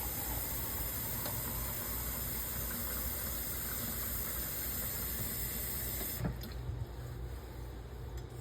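Water running steadily from a tap into a dip mug, shut off with a click about six seconds in.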